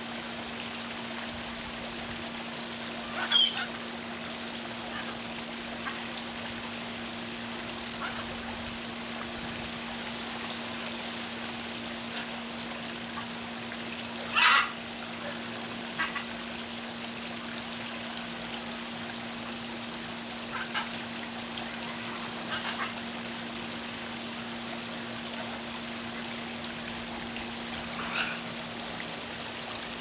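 Tiered stone garden fountain with water spilling and trickling steadily over its scalloped bowls, under a steady low hum. A few brief sharp sounds cut in over the water, the loudest about halfway through.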